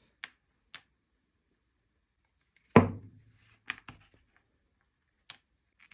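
Hand wire strippers clicking as they cut and pull the insulation off the end of an 18 gauge wire: a few short sharp clicks, with one loud knock about three seconds in.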